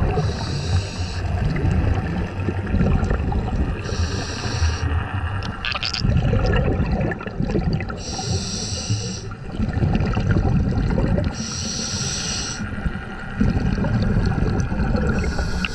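Scuba diver breathing through a regulator underwater: a short hissing inhale about every three and a half to four seconds, five in all, each followed by the low bubbling rumble of the exhale.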